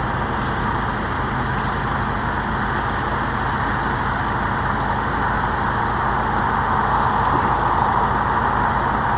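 Steady rumble of a running vehicle, with no clear change.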